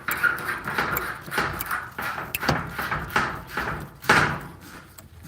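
A run of irregular knocks, bumps and scrapes from hands and tools working on HVAC drain parts, loudest about four seconds in.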